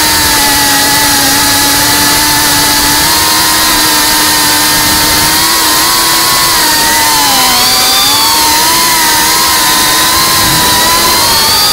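FPV quadcopter's electric motors and propellers whining loudly, heard from the drone's onboard camera, the pitch wavering up and down with the throttle and dipping then rising sharply about seven to eight seconds in.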